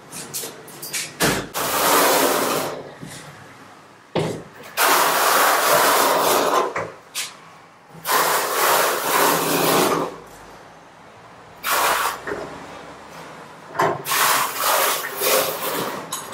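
Steel notched trowel scraping tile adhesive across a concrete floor in repeated strokes, each lasting a second or two with short pauses between.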